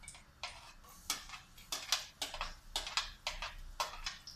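White plastic spatula scraping and tapping against a stainless steel frying pan as the contents are stirred: a quick series of short scrapes and clicks, about three a second.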